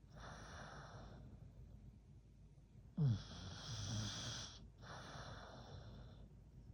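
American Bully dog snoring in its sleep: a loud snore on the in-breath about three seconds in, starting sharply and falling in pitch with a low buzz, followed by a softer out-breath. Another out-breath trails off in the first second.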